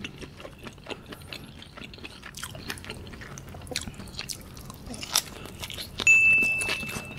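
Grilled squid being pulled apart by hand and bitten, a run of small sticky tearing and crackling clicks. About six seconds in, a loud steady high beep sounds for about a second and a half: an added on-screen sound effect.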